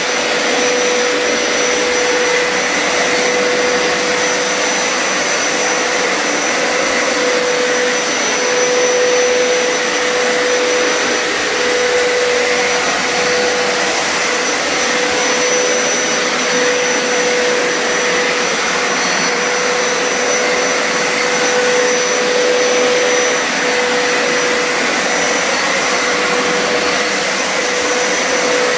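A Hoover Power Scrub Deluxe carpet cleaner running on a hard floor with its hard-floor adapter fitted. Its suction motor makes a loud, steady rush of air with a constant whine as it washes the wet floor and picks up the solution.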